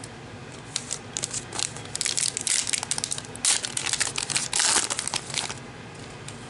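Plastic trading card pack wrapper being torn open and crinkled by hand, a run of crackling from about a second in that is loudest in the middle and stops shortly before the end.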